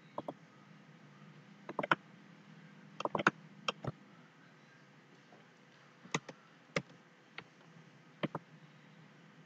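Computer mouse clicking: a dozen or so short sharp clicks, some single and some in quick pairs and triples, over a faint steady low hum.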